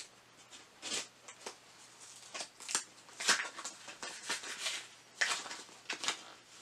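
X-Acto hobby knife slitting the tape and cardboard of a shipping box, with hands scraping and rustling the cardboard: a string of short, irregular scratchy strokes.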